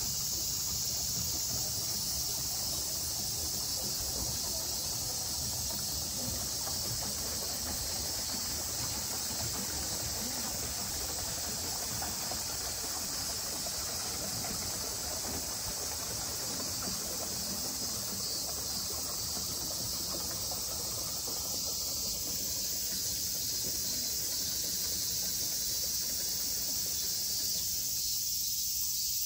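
Chorus of cicadas: a steady, unbroken high-pitched drone.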